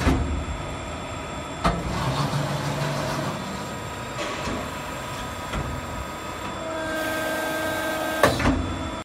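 63-ton CNC hydraulic press brake running: a steady mechanical hum with sharp clunks at the start, about two seconds in and near the end. A high whine comes in about seven seconds in and stops with the last clunk.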